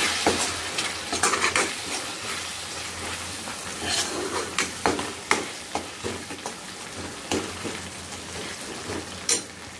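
Onion-tomato masala with chilli powder and salt sizzling in a kadai while a spatula stirs it, with irregular scrapes of the spatula against the pan. The sizzle grows a little quieter in the second half.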